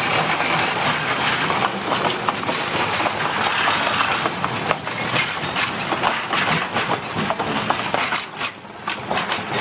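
Narrow-gauge forest railway train rolling past, its wheels and wagons making a dense clatter of clicks and metallic clinks that dips briefly near the end.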